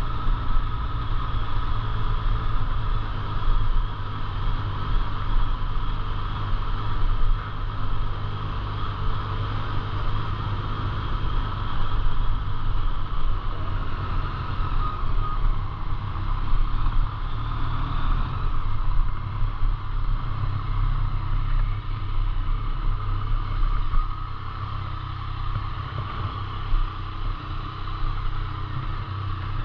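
A road vehicle running steadily, a continuous low engine and road rumble.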